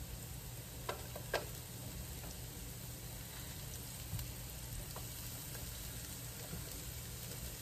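Onion rings sizzling steadily in grapeseed oil in a frying pan, with a couple of light clicks about a second in.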